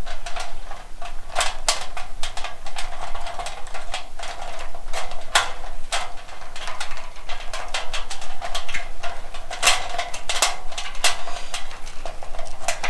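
Hands pressing and shifting a bundle of wires in black plastic split wire loom against the sheet-metal housing of a fluorescent light fixture: irregular clicks, crackles and rattles.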